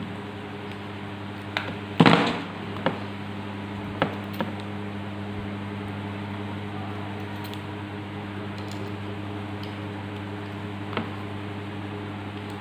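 Small metal parts of an ignition distributor clicking and clattering a handful of times as they are handled and fitted, the loudest a short clatter about two seconds in, over a steady low hum.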